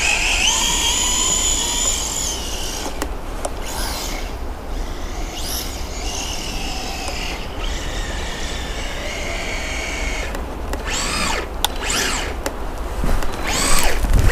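High electric whine of the VKAR SCTX10 V2's 3650 3300KV brushless motor and drivetrain, rising and falling in pitch with the throttle. Several short, sharp whines come in quick bursts near the end.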